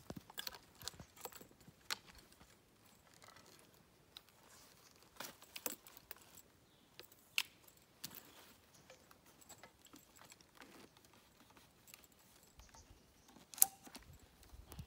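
Metal detector gear being handled during a coil swap: scattered light clicks, taps and rustles, with one sharp click about a second before the end.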